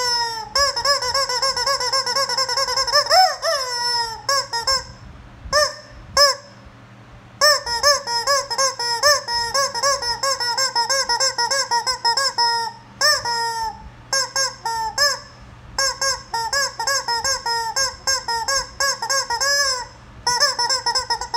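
Rubber chicken squeeze toy being squeezed over and over, giving rapid short honking squawks, several a second, each rising then falling in pitch. A couple of brief pauses break the run.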